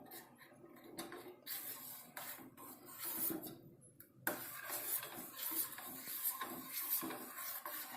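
A spoon scraping repeatedly in a cup of milk, stirring or spooning in palm-sugar powder, at about two to three strokes a second, with a brief pause about four seconds in.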